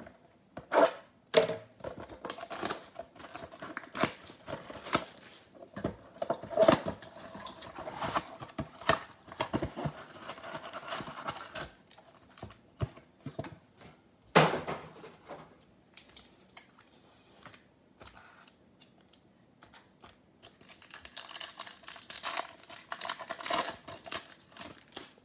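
Hands opening a cardboard trading-card box and then tearing open a foil card pack: a run of rustling, cardboard scraping and wrapper crinkling, with one louder sharp snap about midway and dense crinkling near the end.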